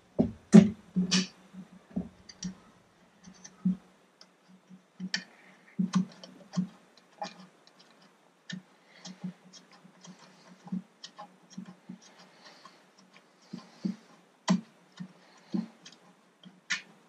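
Irregular clicks, taps and light knocks as a rubber water hose for the telltale is pushed and worked through a hole in an outboard motor's cowling, with the loudest knocks near the start and about six seconds in.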